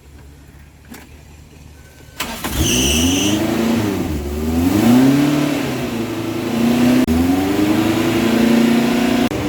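Daihatsu truck engine starting about two seconds in, with a brief high-pitched tone as it catches. It is then revved up and down several times and settles to a steady fast idle.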